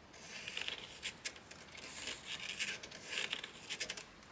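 Pencil scratching on bare timber as it traces around the outline of a wooden saw handle, in short irregular strokes that stop just before the end.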